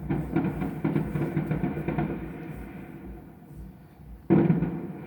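Fireworks going off at a distance: a quick run of crackles and pops that fades over the first two seconds or so, then one sharp bang about four seconds in that dies away.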